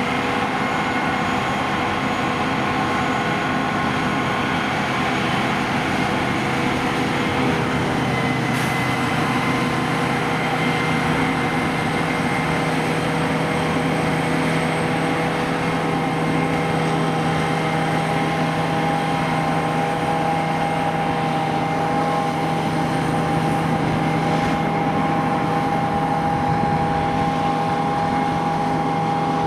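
Heavy diesel farm machinery running steadily at constant speed: an even engine drone with several steady whining tones over it and no breaks or knocks.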